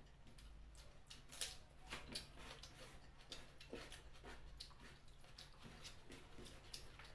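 Faint eating sounds: irregular wet smacks and clicks of someone chewing and sucking on chicken feet in curry, several a second.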